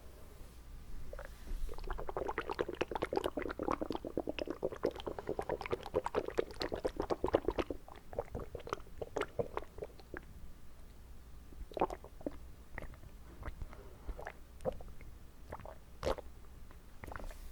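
Water swished and squelched around inside a person's mouth close to the microphone: a dense run of rapid wet squishing for several seconds, then scattered single wet clicks.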